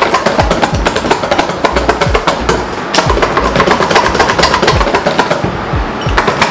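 Rapid clattering of a utensil beating a cake mixture by hand in a bowl, hard work for the arm, over background music with a steady thumping beat.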